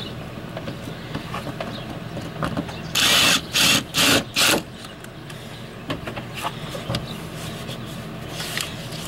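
DeWalt cordless driver running a bolt in, in four short bursts about three seconds in, the first the longest, with small clicks of tool handling around them.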